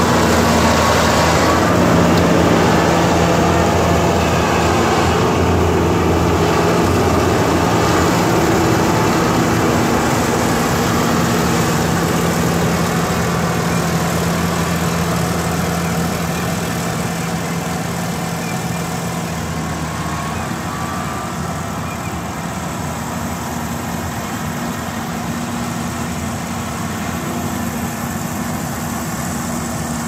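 Yanmar AG600A rice combine harvester's diesel engine and machinery running steadily as it cuts rice, growing a little fainter over the second half as the machine moves away.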